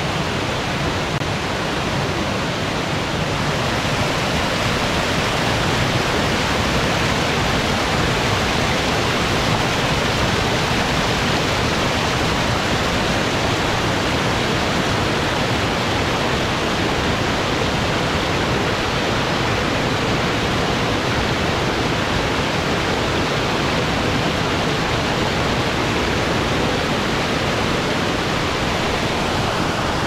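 Steady rushing of the Bâlea waterfall, a tall stepped mountain waterfall pouring over rock.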